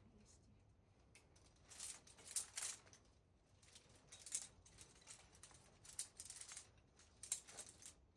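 Short bursts of scraping and rustling, four or five of them, roughly every one and a half to two seconds, typical of rope being handled and nylon clothing or gear brushing during a crack climb.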